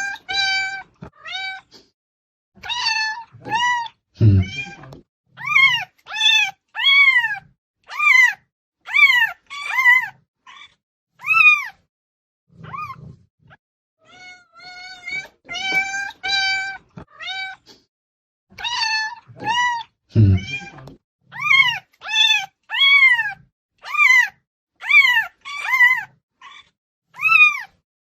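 Domestic cat meowing loudly over and over, each meow rising then falling in pitch, about one a second with a few short pauses. A low thump sounds about four seconds in and again around twenty seconds in.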